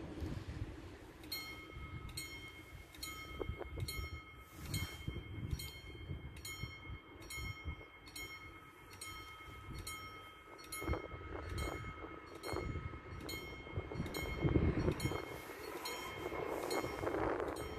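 Level-crossing warning bell ringing in evenly repeated dings, about one and a half a second, starting about a second in: the crossing has been triggered and is closing for an approaching train.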